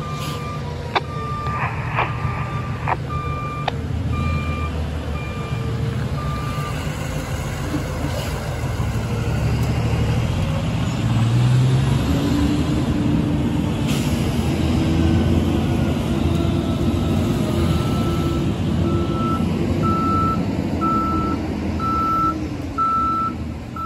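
A heavy vehicle's engine runs close by, building louder partway through, while a reversing alarm beeps in an even rhythm for the first several seconds and again over the last several seconds.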